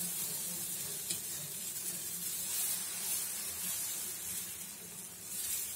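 Dosa batter sizzling with a steady hiss on a hot iron tawa as a ladle spreads it in circles, with a low steady hum underneath.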